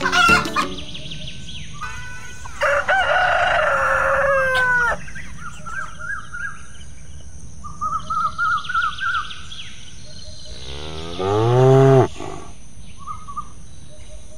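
Farm animal sound effects: a rooster crows, a hen clucks in short repeated calls, then a cow gives one long moo about eleven seconds in.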